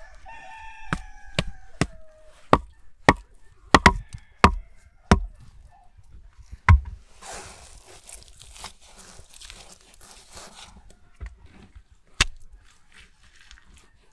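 A run of sharp wooden knocks on the upright logs of a log-and-mud tandoor being built, about ten in the first seven seconds. Then a few seconds of rustling and scraping as wet mud is pressed into the gaps between the logs, and one more knock near the end.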